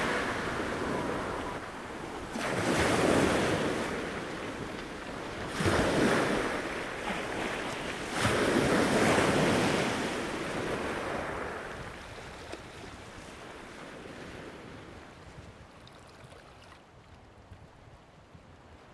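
Sea waves washing in, three swells about three seconds apart, then dying away to a faint hiss.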